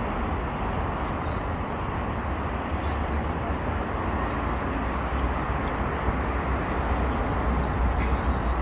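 Steady outdoor city street ambience: a constant low rumble with an even hiss over it.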